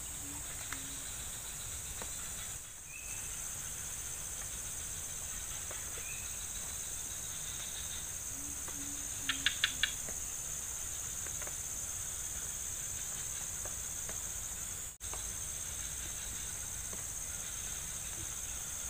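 Steady high-pitched chorus of insects chirring, with a quick run of about five sharp chirps about halfway through and a few faint short calls scattered around it. The sound drops out for an instant twice.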